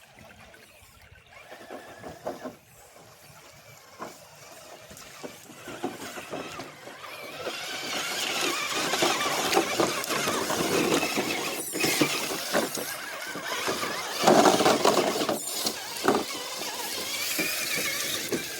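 RC rock crawler driving over rock, its electric motor and gears whining. It gets much louder from about eight seconds in.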